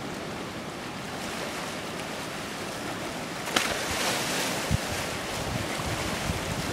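Waves washing on a sandy shore, with wind buffeting the microphone in low gusts. A sharp click comes about halfway through, after which the wash grows a little louder.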